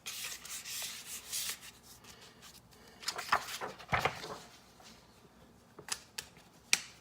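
Faint rubbing and rustling handling noise, with a few short sharp clicks near the end.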